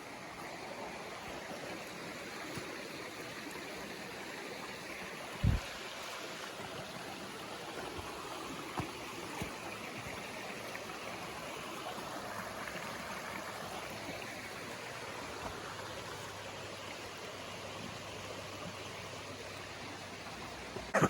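Mountain river rushing steadily over rocks and into pools. A single low thump about five seconds in.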